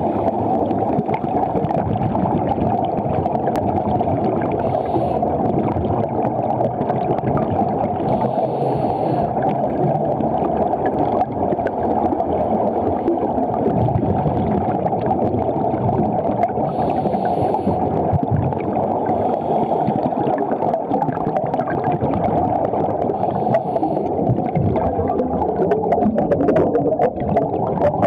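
Underwater sound through a camera housing: a steady muffled rumble of water, with a scuba diver's regulator breath bubbles hissing and gurgling every few seconds. A crackle of small clicks near the end.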